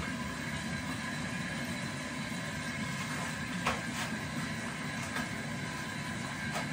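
Tap water running steadily into a bathroom sink during face washing, with a small click about four seconds in.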